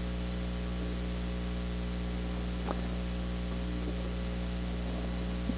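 Steady electrical hum with a layer of hiss from the recording or sound system, no one speaking; one faint click about two and a half seconds in.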